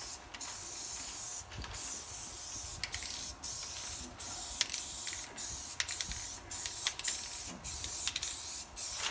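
Spray paint hissing in repeated spurts separated by brief gaps, as the inside of the car's roof is painted black.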